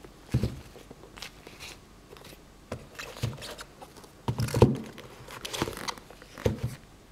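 Handling noise: irregular bumps and rustles as football boots are turned over and moved about on a nylon drawstring bag, with a few low thuds, the loudest about halfway through.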